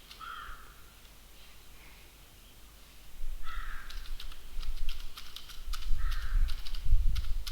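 Computer keyboard being typed on, with a quick run of key clicks starting about three and a half seconds in. Over it, a bird gives a harsh call a few times, a couple of seconds apart.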